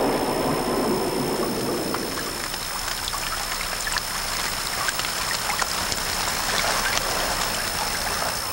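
Water of a stream running and splashing over stones, with many small drips and splashes; a deeper rushing in the first couple of seconds fades out.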